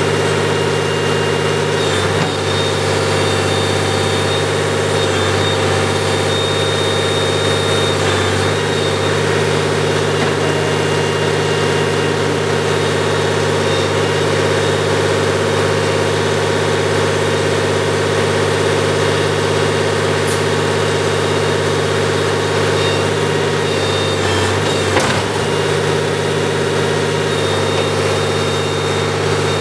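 Backhoe's diesel engine running steadily. Its note dips briefly about two seconds in, again around eight seconds, and once more near the end.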